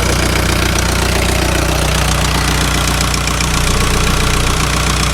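Volkswagen Jetta's ALH 1.9 TDI diesel idling steadily with a lifter tick that fresh oil has not cured; the owner expects to replace the cam and lifters.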